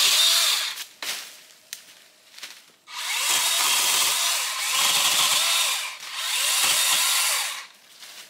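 DeWalt battery-powered pole saw running in short bursts as its chain cuts overhead branches: it stops just under a second in, starts again about three seconds in, pauses briefly around six seconds, runs once more and stops near the end.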